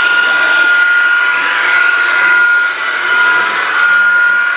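Small electric motor of an H0 model train running along the track, a steady high whine over rolling rail noise, dipping briefly about halfway through.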